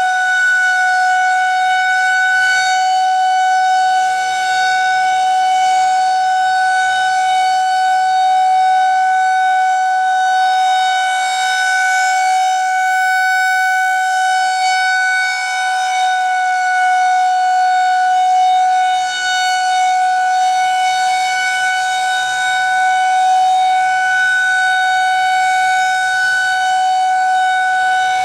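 Federal Signal 2001-130 electromechanical outdoor warning siren sounding a loud, steady tone for its monthly test, holding one pitch with only slight swells in level.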